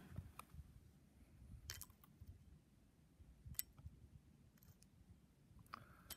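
Near silence: a faint low rumble with about four soft, sharp clicks spread through it.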